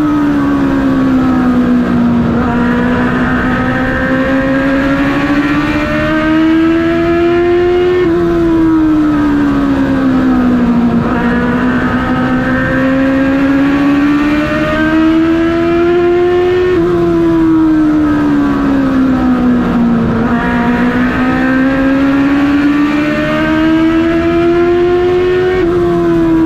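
Race car engine heard from inside the cockpit while lapping an oval. Its pitch climbs steadily along each straight, then drops sharply as the driver lifts for the corner and sinks lower through the turn. This happens three times, about every nine seconds.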